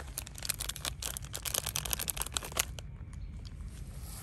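Foil-paper ice cream cone wrapper being crinkled and torn open by hand: a rapid run of crackles and snaps that stops about two and a half seconds in.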